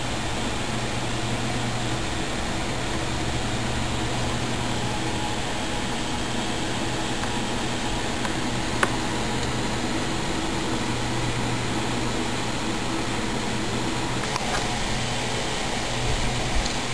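Steady machine hum with an even hiss, like a fan or air conditioner running, broken by a single click about nine seconds in.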